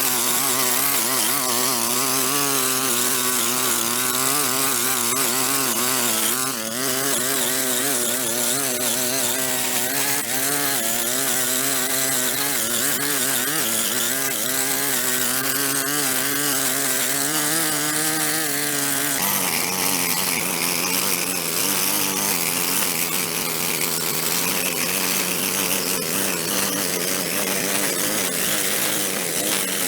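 A small motor-driven power tool running steadily, its pitch wavering up and down under load; the sound changes about two-thirds of the way through.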